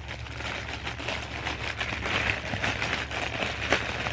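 Light rustling of clothing being handled, with scattered faint crinkles, over a steady low hum.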